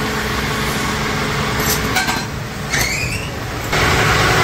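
Workshop machinery running with a steady low rumble, and a few metal clicks and a short rising squeak as motorcycle valve blanks are handled. About three-quarters of the way in the sound jumps to a louder, steady cutting hiss as a lathe turns a valve head.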